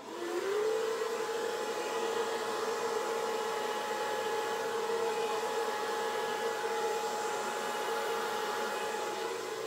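Handheld hair dryer switched on, its motor rising in pitch for about half a second and then running steadily with a hum over the rush of blown air.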